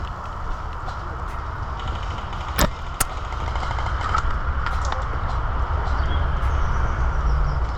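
Steady low rumble of movement and handling noise on a body-worn camera, broken by two sharp snaps about half a second apart, a little over two and a half seconds in.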